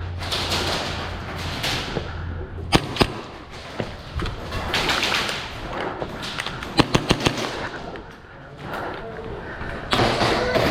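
Airsoft guns firing: two sharp shots about three seconds in, and a quick burst of several shots around seven seconds, with a few more shots near the end.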